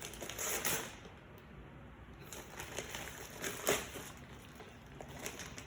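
Gift wrapping being rustled and crinkled by hand as a present is unwrapped, in irregular bursts with a few sharper crackles.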